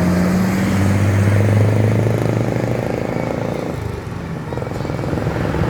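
Buses passing close on the road: a loud, low, steady drone that drops away after about three seconds, leaving a rougher rumble of traffic.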